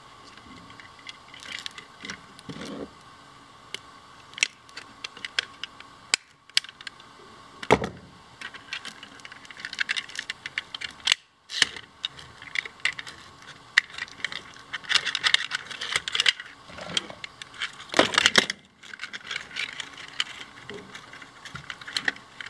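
Hard 3D-printed plastic parts clicking, knocking and rattling against each other as they are handled and fitted together, in irregular bursts that grow busier in the second half, with a sharp knock about eight seconds in and another near the end.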